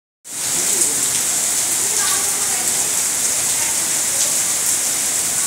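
Heavy rain pouring steadily onto trees and standing floodwater, a dense, even hiss.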